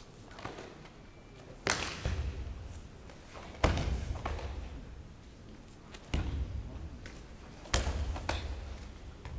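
Karate kata techniques: sharp snaps of the cotton gi with each strike and thuds of bare feet stamping into stances on the mat. There are four loud cracks about two seconds apart and a few lighter knocks between them, each followed by a short echo.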